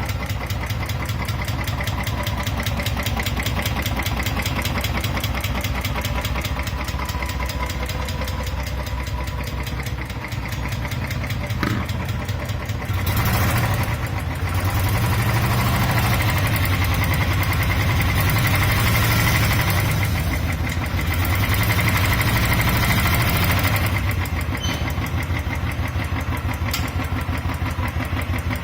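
Royal Enfield motorcycle engine running with a persistent, rhythmic tick-tick. The bike has only 2800 km on it and a service centre has not been able to cure the tick. The engine runs louder for stretches in the second half.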